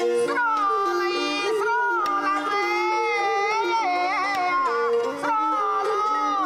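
Khmer traditional music on a bowed tro fiddle and a khim hammered dulcimer: a long, gliding lead melody held over the dulcimer's repeated lower notes.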